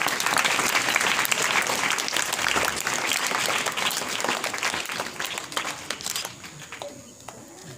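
Audience applauding, a dense patter of many hands clapping that begins abruptly and dies away about six seconds in.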